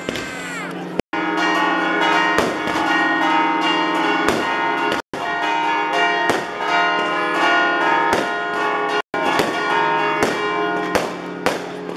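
Church bells ringing rapidly and continuously, with many strikes and overlapping, lingering tones: the festive pealing for the Easter Resurrection at midnight.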